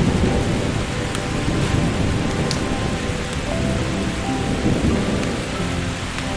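Steady rain with rolling thunder rumbling low, swelling near the start and again about five seconds in, with a few sharp ticks over the rain.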